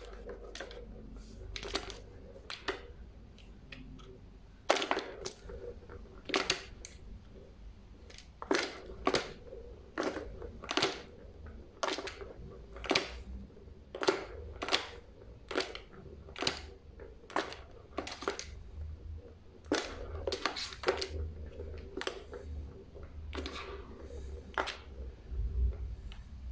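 Plastic balls rattling and knocking around the tracks of a tiered plastic ball-tower cat toy as a cat bats them: a long run of sharp, irregular clicks and knocks, roughly one a second.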